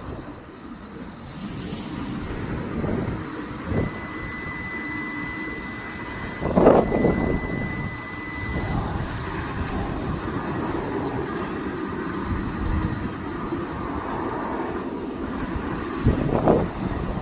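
Jet airliner's engines running on landing approach, a steady rushing noise with a thin high whine for a few seconds about a quarter of the way in. Sudden louder bursts come through twice, mid-way and near the end.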